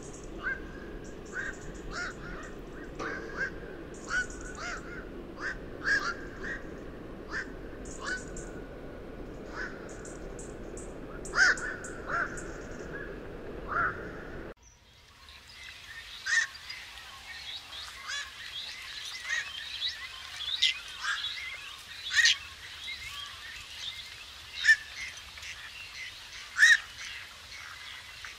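Black-crowned night heron calls: many short, harsh calls in quick succession. About halfway through, a low background noise cuts off suddenly, and the calls that follow are higher and more varied, with some chirps among them.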